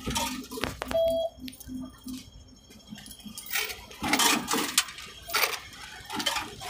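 Clicks, clatter and rustling as a passenger steps off a tram onto a busy street, with a low hum for the first couple of seconds and a short beep about a second in.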